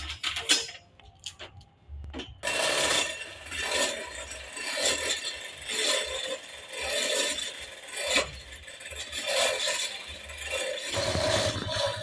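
Chain hoist taking up the weight of a large log: metal chain rattling and scraping through the hoist in rough surges about once a second, starting a couple of seconds in after a few scattered clicks. A low hum joins near the end.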